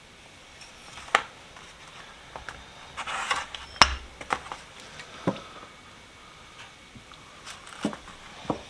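Scattered light clicks and taps as a metal pipe wrench and a brush are handled while paint stripper is brushed on, with a short scrape about three seconds in and the sharpest click just after it.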